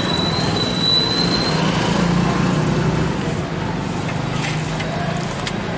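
Street traffic with a motor vehicle engine running nearby as a steady low hum, loudest in the middle, with a few light clicks near the end.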